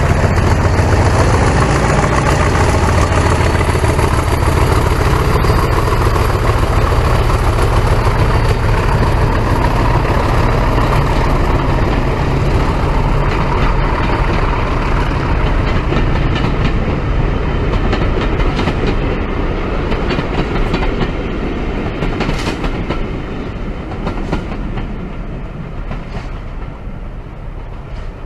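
Diesel-hauled train running on the track, with a deep engine sound strongest in the first half. The train then grows steadily quieter over the last several seconds, as if drawing away.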